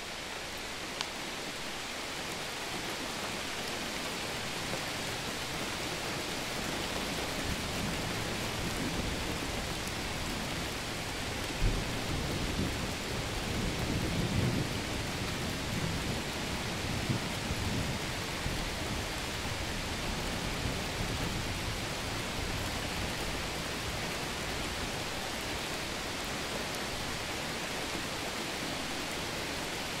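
Steady rain with a low roll of thunder that builds about eight seconds in, is loudest around twelve to fifteen seconds, then dies away under the rain.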